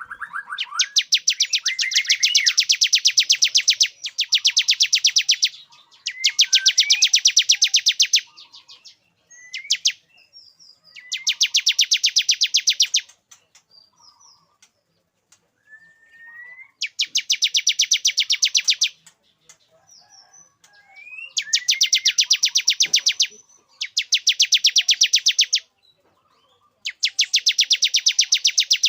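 Male bar-winged prinia (ciblek) singing its courtship song: bouts of two to three seconds of very rapid, evenly repeated high notes, with short rising chirps in the pauses between bouts.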